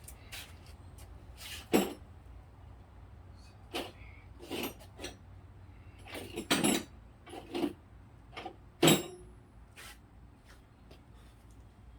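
Metal hand tools clanking and knocking as they are handled, in irregular sharp clatters with the loudest near 2, 6.5 and 9 seconds in.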